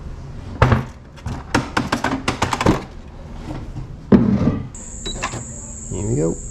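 Plastic hard cover of a Brother computerised sewing machine clattering and knocking as it is handled and lifted off, with a heavy thump about four seconds in. A steady high-pitched whine starts suddenly near five seconds as the machine powers up.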